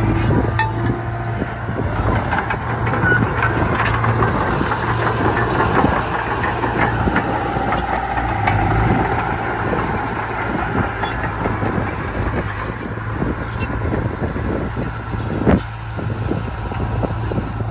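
Komatsu D31P bulldozer's diesel engine running steadily under work, with a stream of small metallic clanks and one sharp clank about fifteen seconds in.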